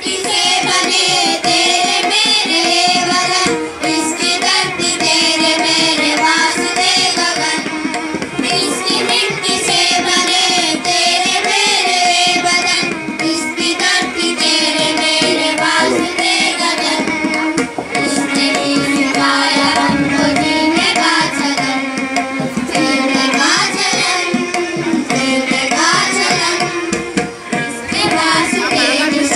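Children's choir singing an Indian song together, backed by hand-drum percussion, loud and continuous.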